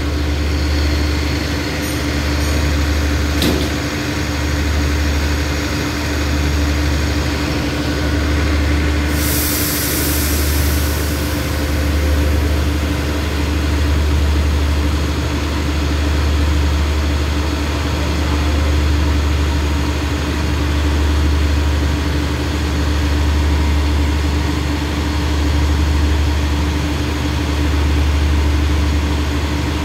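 Diesel engine of a stationary passenger train idling: a deep hum that swells and fades about every two seconds, over a steady drone. A burst of hiss comes about nine seconds in and lasts about two seconds.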